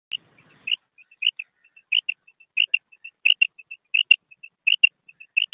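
Quail calling: a run of short high notes, mostly in pairs, about one pair every two-thirds of a second, with softer single notes between.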